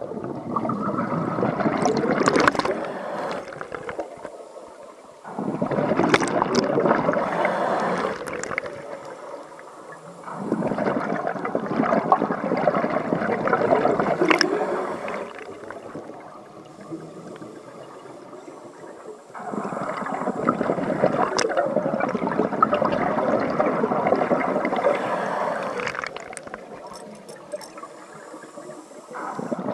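Scuba regulator exhaust bubbles as a diver breathes out underwater: a few seconds of bubbling at each breath, with quieter pauses between breaths, repeating about four times.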